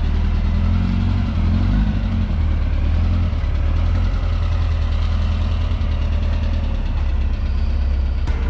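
Air-cooled 2332 cc flat-four engine of a 1967 Volkswagen Beetle running at low revs as the car rolls out of the garage and pulls away, a steady low engine note with slight rises in pitch. Music with a beat comes in near the end.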